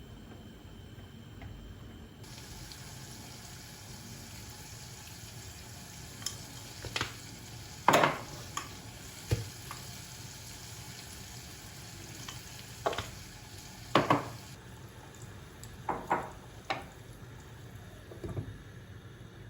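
Cooking sounds: a utensil knocking and clattering against a pot or pan about a dozen times, loudest about eight and fourteen seconds in, over a faint steady hiss.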